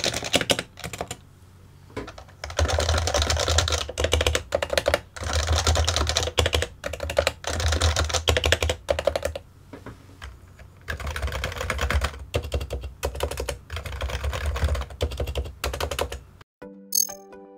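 Fast typing on a Topre capacitive keyboard: several runs of rapid keystrokes with short pauses between them. The typing stops near the end, and music starts.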